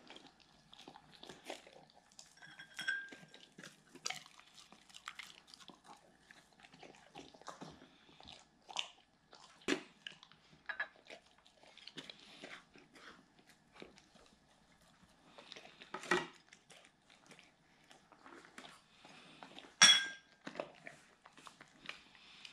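A Doberman chewing and licking soft dog-cake treats, with scattered wet smacks and crunches. A glass dish clinks a couple of times, the loudest with a short ring near the end.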